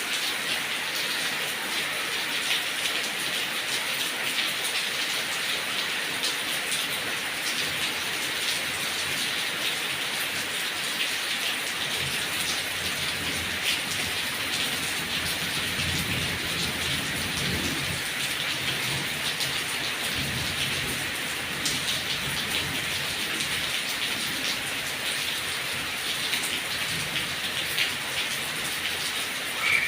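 Heavy rain falling steadily on papaya leaves, a dense patter of drops. A faint low rumble comes in about halfway through.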